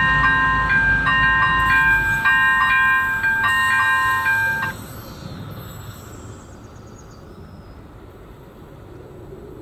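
Electronic warning bell of an AŽD 97 level crossing sounding its repeating multi-tone chime about once a second, then cutting off about five seconds in as the crossing clears. Under it the low rumble of the departing DLB RegioSprinter diesel railcar fades away during the first two seconds.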